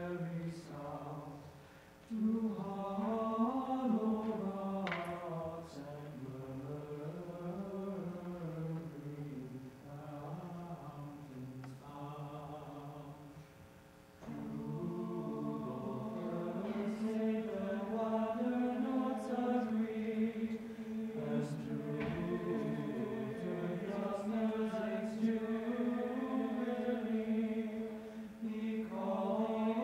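Mixed choir singing a slow requiem in long phrases. There is a short break about two seconds in and another about fourteen seconds in, after which the voices come back fuller and hold.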